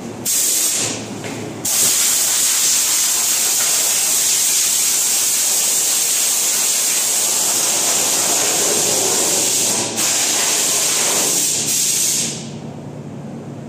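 Compressed air hissing steadily from a spray-gun air line. The hiss breaks off briefly about a second in and twice more near the end, then stops about 12 seconds in, leaving a low hum.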